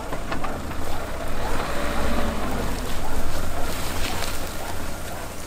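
Land Rover Discovery 3 driving off-road across a grassy meadow, its engine a steady low rumble, with wind buffeting the microphone.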